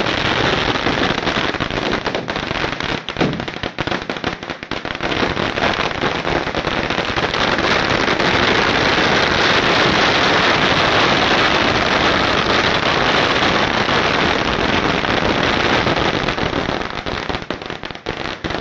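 Strings of Chinese firecrackers going off in a rapid, continuous crackle of small bangs. The crackle thickens into an unbroken rattle in the middle and thins out near the end.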